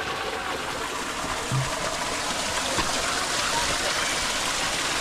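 Rushing water, a steady even rush, with a brief low bump about one and a half seconds in.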